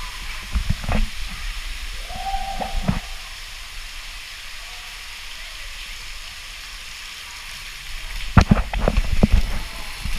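Steady rush of running water, with a few thumps early on and a dense cluster of thumps and knocks near the end.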